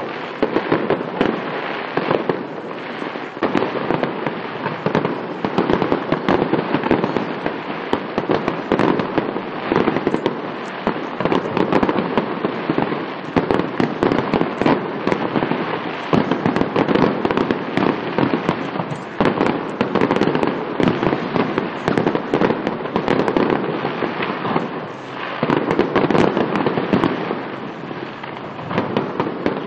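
Fireworks finale: a dense, unbroken barrage of shell bursts and crackling, many bangs a second with no let-up.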